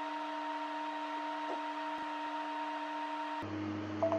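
Steady electrical hum of running test electronics with a few steady tones; about three and a half seconds in it cuts to a deeper mains-like hum. Two short beeps near the end, as the ROM-upload test finishes.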